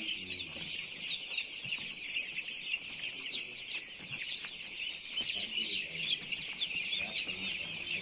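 A crowd of young chicks peeping without pause, a dense chorus of many overlapping short, high cheeps.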